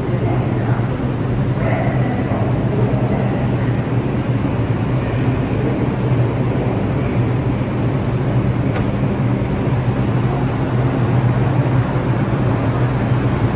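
R142 New York City subway train standing at the platform with its doors open, giving a steady low hum over a constant rumble. A single sharp click about nine seconds in.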